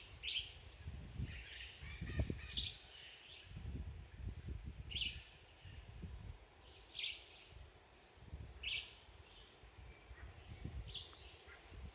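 Birds chirping in short calls every couple of seconds, over a faint steady high-pitched tone and scattered low rumbles.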